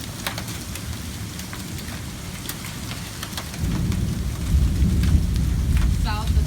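Hail and heavy rain hitting a van's body, with hailstones striking as sharp ticks over a steady hiss of rain. About halfway in, a deep low rumble swells up and becomes the loudest sound.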